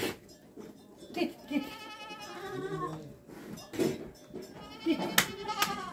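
Young goat kids bleating: one long, wavering bleat about two seconds in, with shorter bleats and a few knocks near the end.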